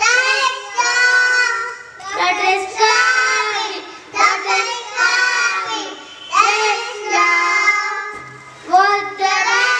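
A small group of young kindergarten children singing a rhyme together into microphones, in short phrases with brief pauses between them.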